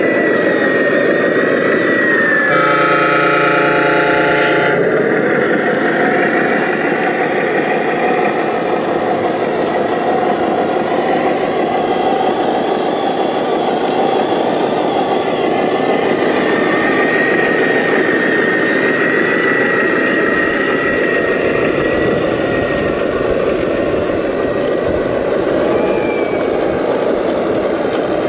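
Radio-controlled construction vehicles working: a steady engine sound with a high whine that wavers in pitch. About two and a half seconds in, a steady pitched tone sounds for about two seconds.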